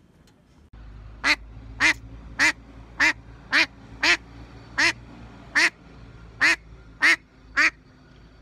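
Female domestic duck quacking loudly, about eleven single quacks, each a little under a second apart. A steady low rumble, like wind on the microphone, lies under them.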